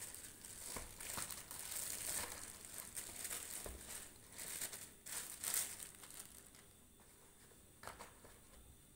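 Clear plastic wrapping crinkling and rustling as a framed plaque is pulled out of it, with sheets of paper being handled; the crinkling dies down after about six seconds, leaving a few light handling clicks.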